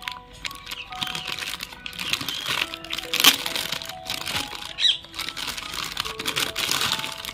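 Thin plastic packaging bag crinkling and rustling with small crackles as a toy tractor is worked out of it, over background music with simple held notes.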